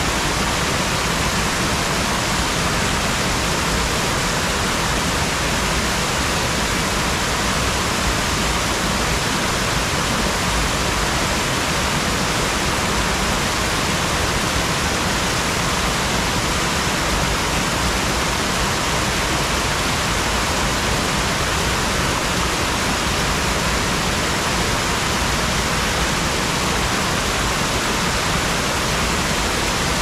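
River water rushing over a small waterfall or cascade: a steady, unbroken rush with no breaks or changes.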